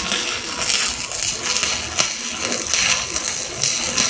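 Shielded metal arc (stick) welding with a 1/8-inch E7018 electrode: the arc crackles and sputters steadily as the bead is run along a steel lap joint.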